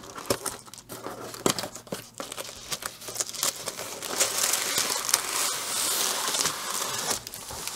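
Clear plastic shrink-wrap being picked at and torn off a cardboard box: scattered crackles at first, then a few seconds of continuous crinkling and tearing of the wrap.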